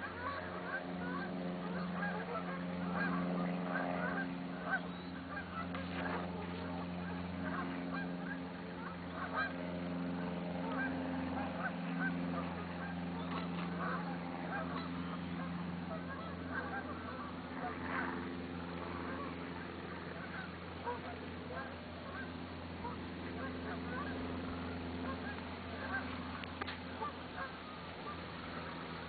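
A flock of geese honking over and over, many short calls overlapping, with a steady low hum underneath.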